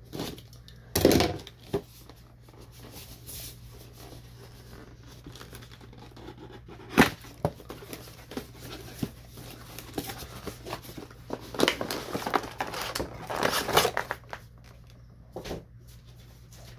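Cardboard box and plastic packaging of an action figure being handled and opened: crinkling and rustling with a few sharp knocks, the loudest about a second in and about seven seconds in, and a longer run of crinkling in the second half.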